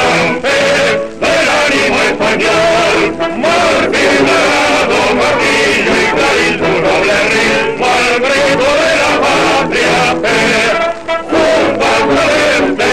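A national anthem performed by a male choir singing over musical accompaniment.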